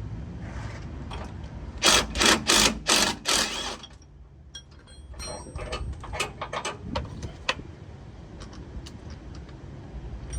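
Power drill with a 14 mm socket run in about five short bursts, spinning off a sway bar bushing nut, followed by scattered light metallic clicks and clinks of the loosened parts.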